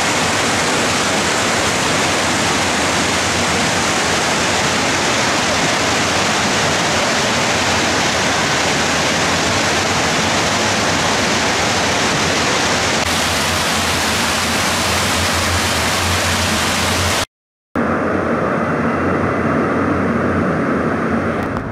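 Steady rush of water pouring down water slides and into the pools of an indoor water park. Near the end it cuts out for a moment, and a duller, quieter rush follows.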